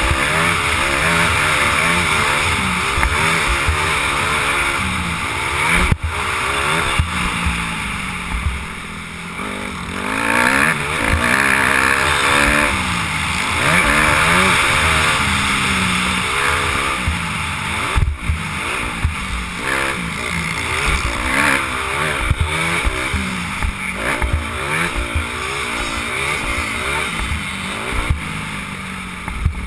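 Dirt bike engine revving up and down again and again as it is ridden hard through the gears, heard from a helmet camera with steady wind rush. Two sharp knocks stand out, about six seconds in and again near eighteen seconds.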